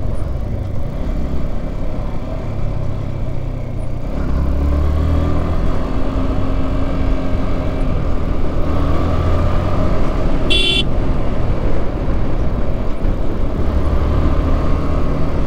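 Motorcycle ride on a Yamaha R15M: wind rumble on the mic over the running engine, the engine note rising a little about four seconds in. A short horn beep sounds about ten seconds in.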